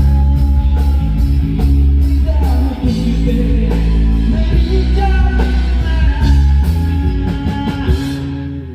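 Live rock band playing loud: heavy bass, drums and a singing voice, with the playing stopping near the end and the sound dying away.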